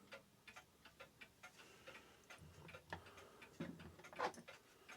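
Faint, steady ticking of a mechanical clock, about four ticks a second.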